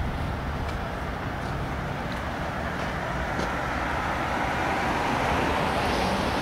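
Steady vehicle and road rumble with some hiss, slowly growing louder.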